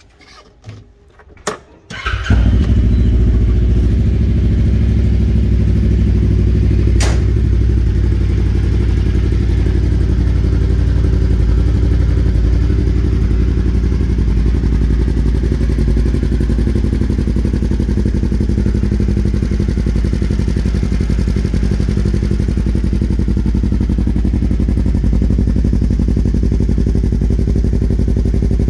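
Turbocharged 2021 Kawasaki KRX 1000 side-by-side with a Force Turbos USA exhaust, cold-started: a few clicks, then the engine catches about two seconds in and settles into a steady idle.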